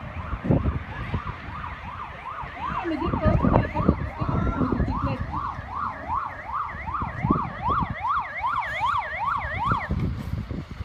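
Emergency vehicle siren on a fast up-and-down yelp, about two sweeps a second, growing louder partway through and cutting off suddenly near the end, over low rumbling noise.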